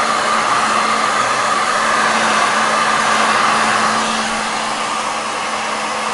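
Handheld hot-air blower running steadily, a continuous rush of air over a low steady hum, heating the edges of a replacement phone glass to set its adhesive.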